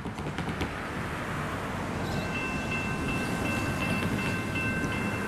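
Car traffic passing over the level crossing. About two seconds in, the crossing's General Signals electronic bell starts ringing: the crossing has activated for an approaching train.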